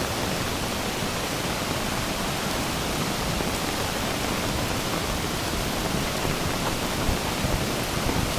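Steady rushing of a flooded river in spate, an even roar of fast water with no letup.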